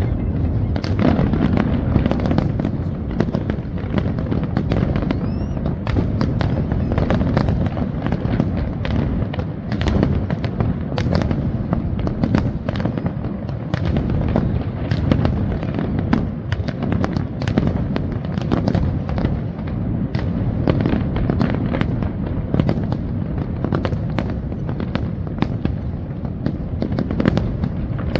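Fireworks display at full pace: a dense, continual barrage of bursts and crackles over a steady low rumble, with several bangs a second.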